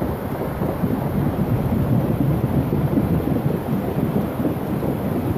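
Thunderstorm: a steady low rumbling with rain, no single sharp thunderclap standing out.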